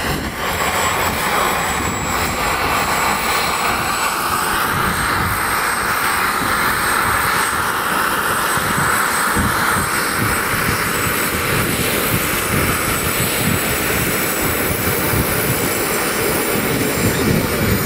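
Scale radio-controlled Mil Mi-24 Hind model helicopter coming in to land with its landing gear down and settling onto the grass. A steady high engine whine runs over the rotor noise and dips slightly near the end.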